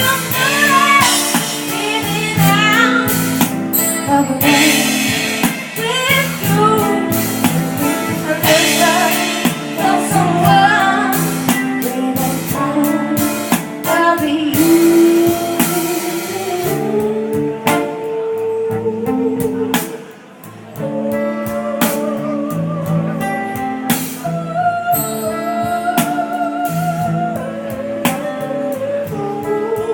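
A band playing a mellow song: a singer over guitar and drums, with a brief dip in the music about two-thirds through.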